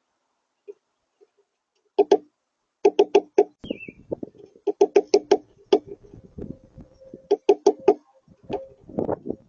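Tufted titmouse hammering a seed held in its feet, its bill striking in quick bursts of three to five sharp knocks. The bursts repeat several times.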